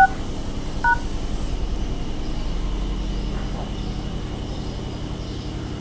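Phone dialer keypad touch tones: a short dual-tone beep right at the start and a second one about a second in as the # key completes the USSD code *566#. After that only a steady low hum remains.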